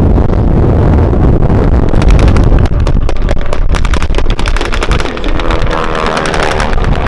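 WWII warbird piston engines passing low overhead. A rapid throbbing engine note swells about two seconds in, and near the end it turns into a drone whose pitch falls as an aircraft goes by.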